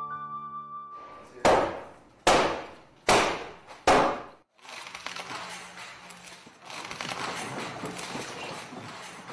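Four heavy blows on wooden wall boards, a little under a second apart, each ringing briefly, as the boards are knocked loose during renovation demolition. After them comes a steady rough noise of the work going on. Soft flute music fades out just before the first blow.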